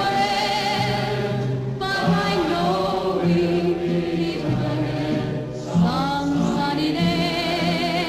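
Film-score music: a choir singing long, sustained notes with a wavering vibrato. The chord changes about two seconds in and again near six seconds.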